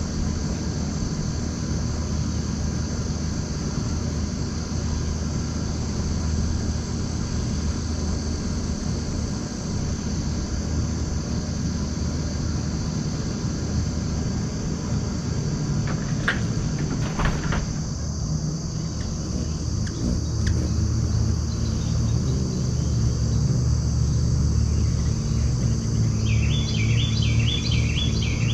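Ruby-throated hummingbird at a nectar feeder giving a few short, sharp squeaks about halfway through, then a quick run of descending chirps, about four a second, near the end. Under it run a steady low rumble and a constant high insect trill.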